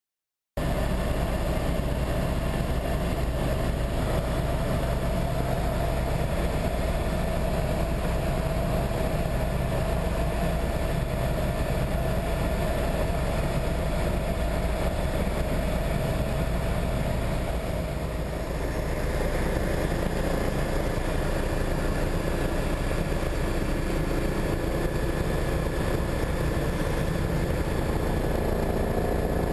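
An engine running steadily under a constant rumble of noise. Its note dips and shifts slightly about eighteen seconds in.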